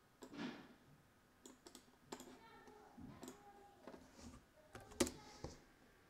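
Scattered clicks of a computer keyboard and mouse as a terminal command is entered, with one sharper key stroke about five seconds in.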